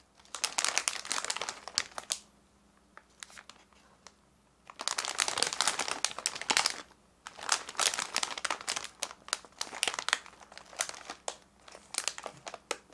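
Clear plastic bag of packaged snacks crinkling as it is handled and turned over, in four stretches of crackling with short quiet pauses between them.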